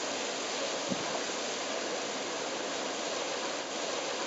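Steady rushing hiss of a walk-through fountain's rows of water jets spraying up and splashing down onto the paving, with a dull thump about a second in.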